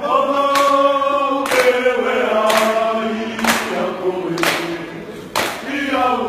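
A group of men singing together in harmony, holding long notes, with a sharp percussive hit about once a second keeping time.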